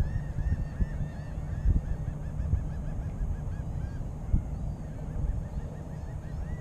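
A flock of birds calling continuously, many short arched calls overlapping, over a low rumble of wind on the microphone. A couple of brief low knocks come through, about two and four seconds in.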